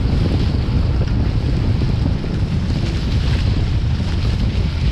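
Wind buffeting the microphone hard, over the hiss and splash of water rushing past the hulls of a small sailing catamaran moving fast.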